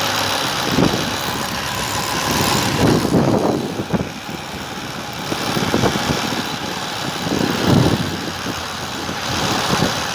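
Rushing wind and road noise from riding an electric velocipede powered by a converted washing-machine BLDC motor, swelling louder a few times.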